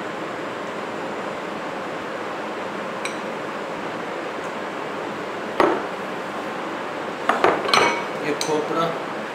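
Small glass bowls knocking and clinking against each other and on a tabletop: a faint clink, a sharp knock about halfway through, then a quick run of ringing clinks near the end. A steady hiss lies under it all.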